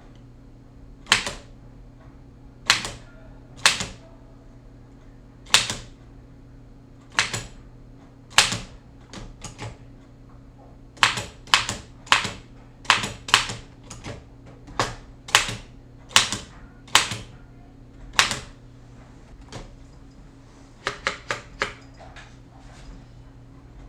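Restored Oliver No. 9 typewriter being typed on: sharp, separate keystroke clacks at an uneven pace, quicker in the middle and in a short quick run near the end. A faint steady low hum runs underneath.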